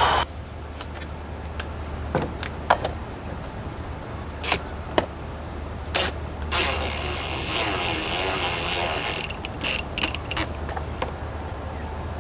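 Scattered metallic clicks and knocks of hand tools working on car battery hardware, with a few seconds of denser ratcheting-type clatter in the middle.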